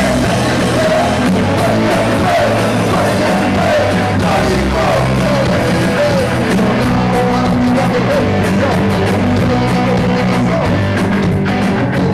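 Punk rock band playing loud with distorted instruments, drums and shouted singing.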